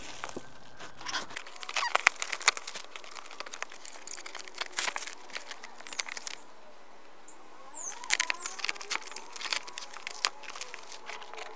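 Knife cutting open a cardboard box and plastic wrapping being pulled out, crinkling and rustling in many sharp crackles. A few short high squeaks come about six and eight seconds in.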